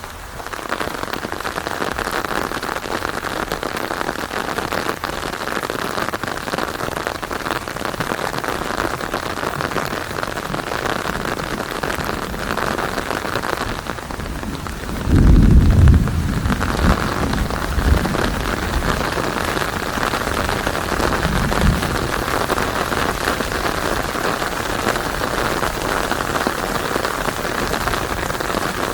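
Steady rain. About halfway through comes a loud thunderclap that rumbles on in smaller low peals for several seconds.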